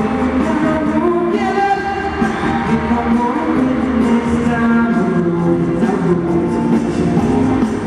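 Live pop band performance recorded from the audience: a male lead vocal sung into a microphone over the band's amplified backing.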